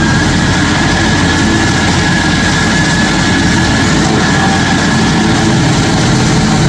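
Stump grinder running steadily under power, a dense, loud engine-and-machine noise with a faint high whine over the first few seconds.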